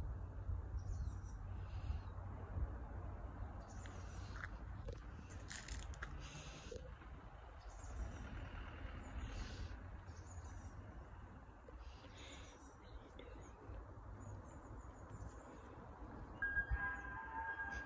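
Small birds chirping at intervals over a steady low rumble. Near the end, an ice cream van's chime tune starts playing.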